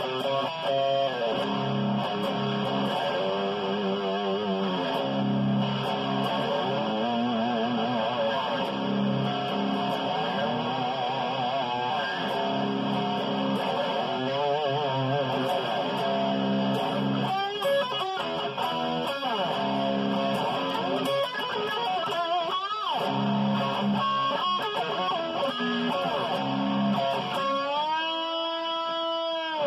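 Ibanez electric guitar played lead, with notes wavering in vibrato and bending in pitch, then a long held note near the end.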